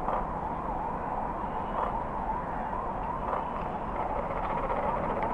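A warbling siren, its pitch rising and falling about three times a second, over a low background rumble.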